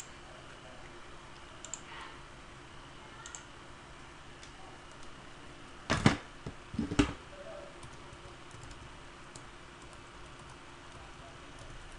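Computer keyboard typing and mouse clicks: scattered faint clicks, with two louder, sharper knocks about six and seven seconds in.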